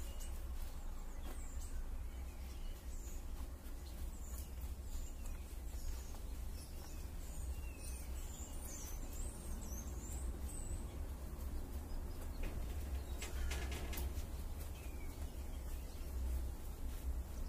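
Small birds chirping now and then, high and brief, over a steady low rumble of outdoor background noise. A few short clicks come about 13 seconds in.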